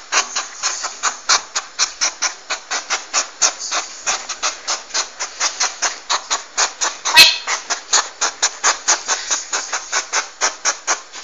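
Porcupine making a fast, even series of dry rasping pulses, about five or six a second, with one sharper, louder click partway through.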